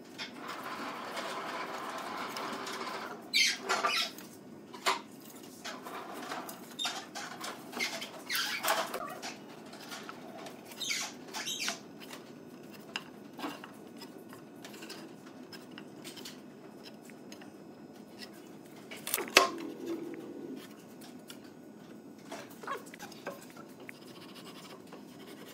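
Marking out a pine board by hand on a wooden workbench. A pencil scratches and rasps steadily for the first few seconds, then a tape measure and a steel square click and knock against the wood, with one sharper knock about two-thirds of the way through.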